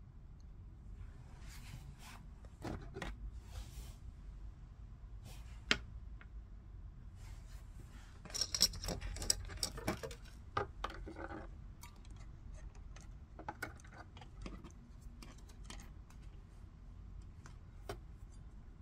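Clicks and rustles of hands working stiff wires and a twist-on wire connector in a metal electrical box. There is a sharp click about six seconds in and a busier run of clicks and scrapes around the middle.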